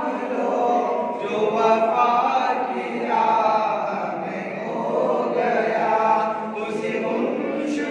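Men's voices chanting a devotional salam to the Prophet together, in long, held sung phrases.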